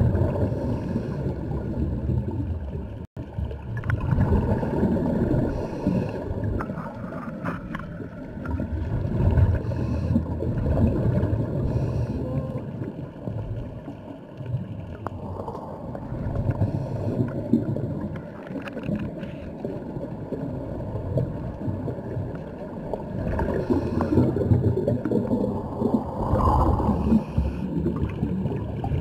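Muffled underwater noise heard through a waterproof camera housing: a steady low rumble of water movement with gurgling bubbles and small clicks, swelling and easing irregularly. The sound cuts out for an instant about three seconds in.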